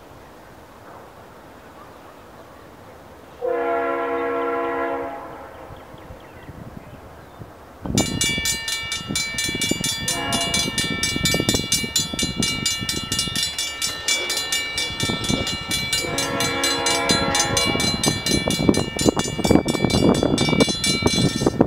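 A Norfolk Southern C40-8W diesel locomotive's air horn sounds one blast about three seconds in. About eight seconds in, the grade-crossing warning bell starts ringing rapidly and keeps on. Over the bell the horn sounds a short blast and then a long one, while the approaching train's rumble grows louder.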